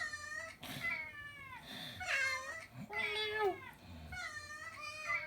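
Cats meowing one after another, about five meows with mostly falling pitch, a mix of a real pet cat and recorded cat meow sound effects. Two short breathy hisses come between the meows about one and two seconds in.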